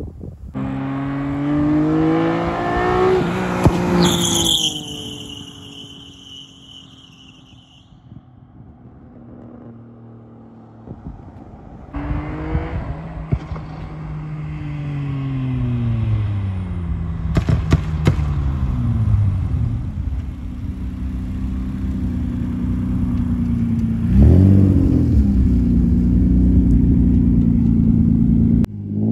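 Nissan Maxima's 3.5-litre V6 through a 3-inch ISR single-exit exhaust accelerating past on the road: the engine note climbs, then drops in pitch as the car goes by and fades. From about halfway the engine is heard again, its pitch falling, then a steady drone with a short rev near the end.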